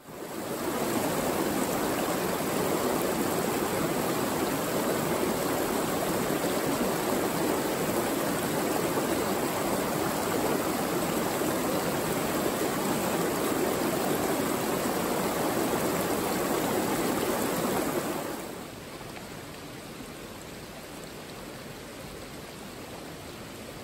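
A small mountain stream rushing and splashing over mossy rocks, close and steady. About 18 seconds in it drops suddenly to a softer, steady rush of water.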